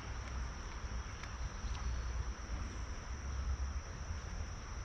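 Outdoor creek-side ambience: a steady, high-pitched drone of crickets or other insects over a low rumble.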